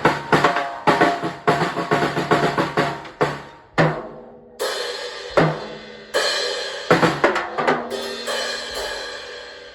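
Music played on a drum kit: a quick run of snare and bass drum hits, then cymbals ringing over sparser hits from about halfway through.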